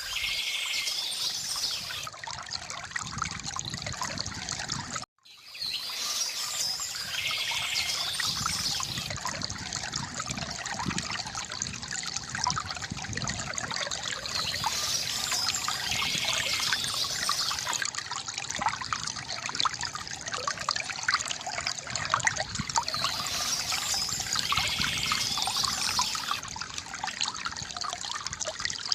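Stream water gurgling and trickling over stones, with bursts of small-bird chirping high above it that return about every nine seconds. About five seconds in, the sound cuts out for a split second, like a loop splice.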